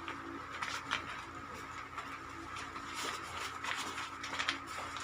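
A tripod being unpacked from its carry bag: handling noise with scattered light clicks and rustles, coming more often in the second half, over a steady background hum.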